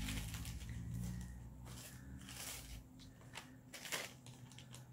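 Faint rustling and light clicks of a fabric drawstring pouch being opened and a slip of paper handled, over a low steady hum.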